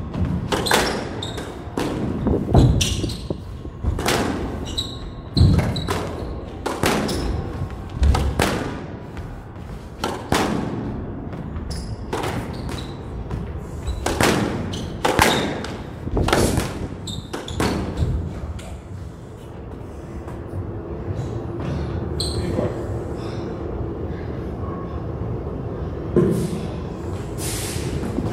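Squash rally: the ball cracking off rackets and court walls, a sharp knock every second or so, stopping about two-thirds of the way through, with a couple more knocks near the end.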